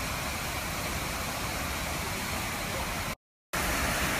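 Waterfall rushing steadily, the creek running full after recent rains. The sound cuts out completely for a moment about three seconds in, then resumes slightly louder.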